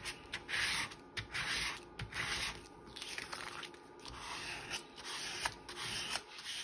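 Paper being rubbed in repeated short swishing strokes, smoothing down a freshly glued paper piece.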